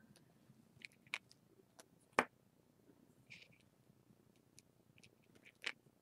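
Quiet room with a few faint, scattered clicks and taps, the sharpest about two seconds in.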